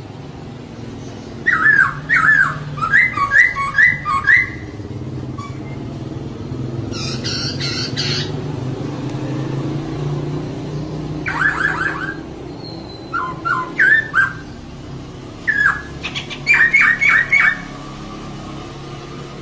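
Female poksay (laughingthrush) calling in five short runs of quick, hooked notes that slide down in pitch, with one harsher chattering burst about seven seconds in. A steady low hum runs underneath.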